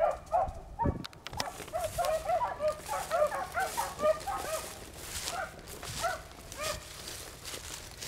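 A pack of beagles baying on a rabbit's trail: many short, overlapping yelping cries, busiest in the first half and thinning out toward the end.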